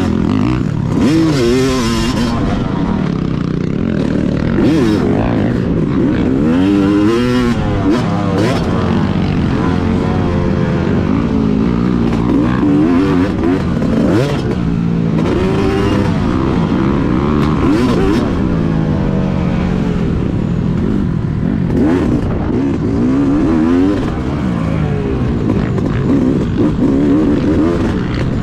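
Single-cylinder two-stroke engine of a 2021 Yamaha YZ250 with a Scalvini expansion-chamber pipe, revved hard and shifted while racing, its pitch rising and falling again and again as the throttle opens and closes, with a few sharp knocks from the bike.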